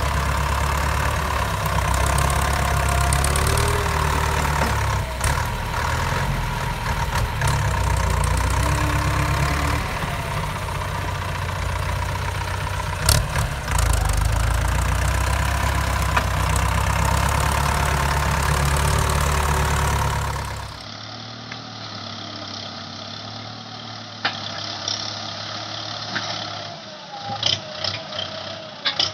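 Ford farm tractor's engine running steadily under load as it pushes brush with a front blade. About two-thirds through it drops quieter. Near the end, sharp snapping and crackling come from brush and branches being driven through.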